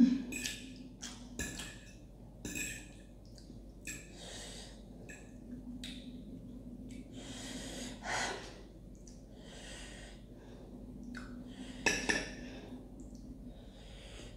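A person eating very spicy instant ramen noodles: chewing and short breaths drawn and puffed through the mouth against the chilli heat, at irregular moments. There is a heavier breath about eight seconds in and another louder burst near twelve seconds.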